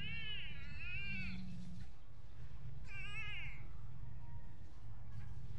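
A domestic cat crying with two long, wavering meows: one at the start lasting about a second and a half, and a shorter one about three seconds in.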